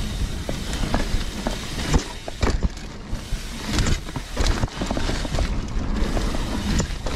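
Mountain bike riding over rough singletrack: wind rushing on the microphone, with the bike rattling and knocking over bumps. Several sharp knocks stand out, the strongest about two seconds and about four seconds in.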